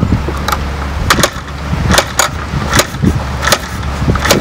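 Vintage scrambler motorcycle being kicked over on its stand: a series of sharp clacks from the kickstart as the engine turns over without yet firing.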